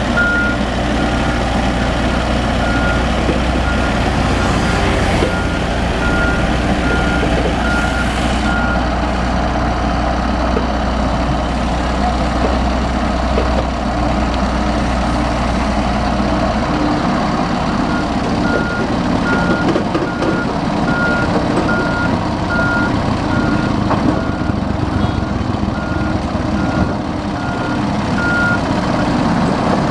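Backhoe's engine running under a reversing alarm's repeated high beeps. The beeping stops about a third of the way in and starts again in the second half.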